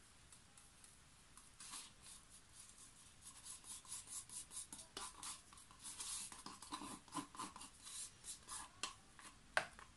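Light scratchy rubbing and crackling of plastic as a small plastic cup of acrylic paint is handled and poured into a plastic flip cup, in quick irregular bursts, with one sharper click near the end.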